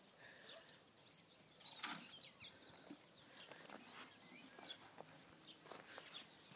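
Faint small birds chirping and singing, many short high notes scattered throughout, with one brief knock about two seconds in.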